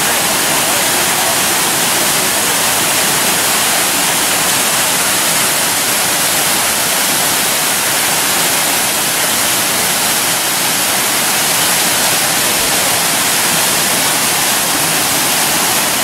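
Large waterfall, water falling and rushing steadily as a constant, unbroken noise.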